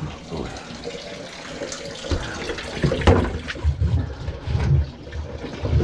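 Water sloshing and gurgling in the drain of a kitchen sink clogged with grease. From about two seconds in there are irregular low knocks and clatter from the work on the drain.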